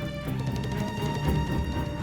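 Background music: a soundtrack with steady held notes over a regular beat.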